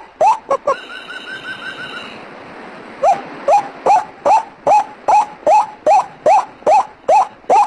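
White-breasted waterhen (ruak-ruak) calls, a recording played as a bird-hunting lure: loud, rising calls repeated about two and a half times a second. About a second in they break off for a short, high, rapid trill, then the calls resume about three seconds in.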